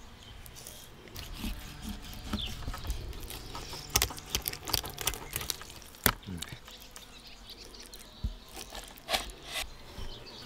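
Kitchen knife slicing through a salmon trout on a wooden cutting board: the blade scrapes and rasps along the skin and bones, and taps and clicks against the board. The sharpest taps come about four and six seconds in.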